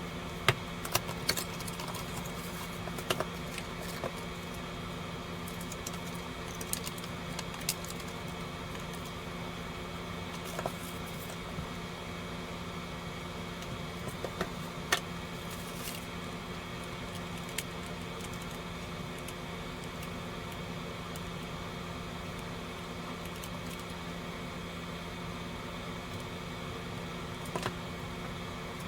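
Steady electrical hum with scattered light clicks and taps, a few at a time, as of a small object being handled.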